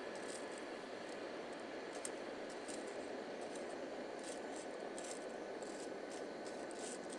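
Steady rush of a portable gas cartridge stove burning under a pot of water, with scattered light metal clicks and taps as steel tongs press spaghetti down against the pot, the sharpest about two seconds in.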